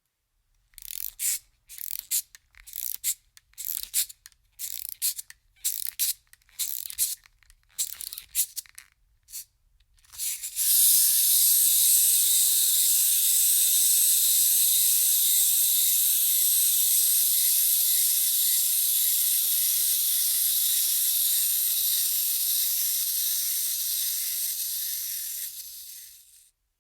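Wind-up toy: its key is wound in a series of short ratcheting bursts, then about ten seconds in the clockwork spring is let go and runs down in a steady high whir lasting about fifteen seconds before dying away.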